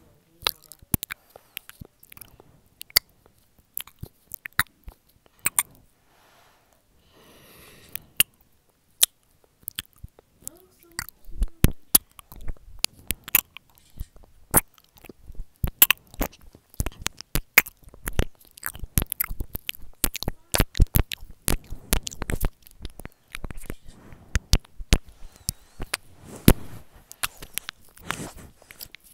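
ASMR mouth sounds close to the microphone: quick wet clicks and lip smacks, scattered at first, then coming thick and fast from about ten seconds in, with a brief soft breathy hiss a little before.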